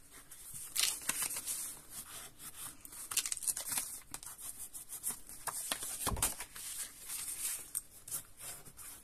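Stiff cardstock being folded along scored lines and the creases rubbed down with a bone folder: irregular dry scraping and paper rustling, with a dull knock on the table about six seconds in.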